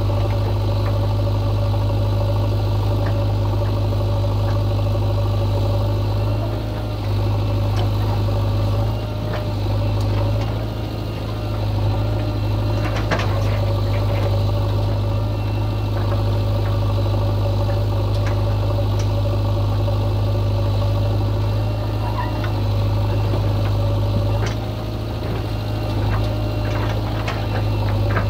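Heavy diesel engine running steadily, dipping in loudness a few times, with a few short knocks about halfway through and near the end.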